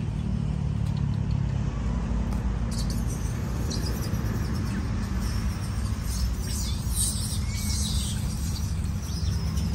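Steady low rumble, with birds chirping from about three seconds in.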